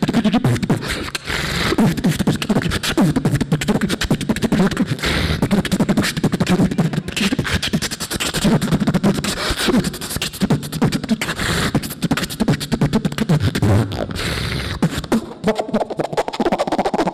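Solo beatboxing into a handheld microphone over a PA: a fast, dense rhythm of percussive mouth sounds with bass hums, and a held higher tone near the end.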